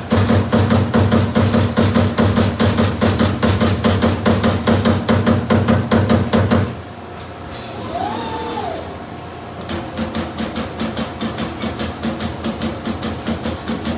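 LVD Strippit CNC turret punch press punching sheet steel in rapid, evenly spaced strokes, about five a second. About halfway through the strokes stop for some three seconds, with a short rising-and-falling whine in the gap, then the punching resumes a little softer.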